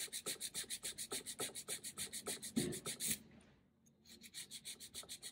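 Rough side of a hand nail file rasping quickly back and forth across a set acrylic sculpted nail, about six strokes a second. The strokes stop briefly just past halfway, then start again more softly.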